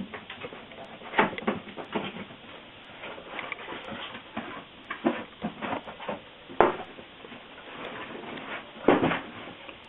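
A PC case's packaging being opened and handled: irregular rustling and scattered knocks and scrapes, the loudest about six and a half and nine seconds in.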